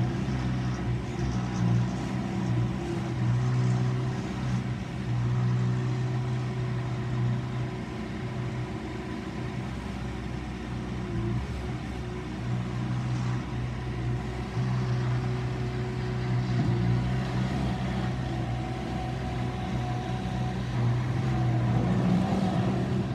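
Bobcat S510 skid steer loader's diesel engine running steadily, its pitch and loudness shifting a little a few times as it works.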